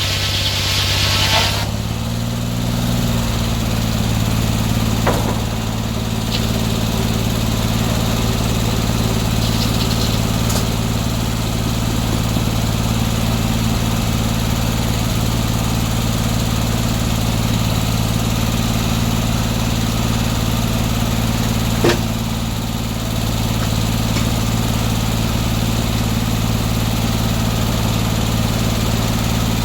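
A circular sawmill's gas engine running steadily. About a second and a half in, a high sawing hiss stops as the blade leaves the cut, and the engine picks up a little speed. Two sharp knocks are heard, about five seconds in and about twenty-two seconds in.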